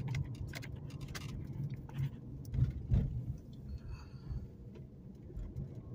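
Low, steady engine and road rumble heard from inside a car cabin, with scattered light clicks and knocks.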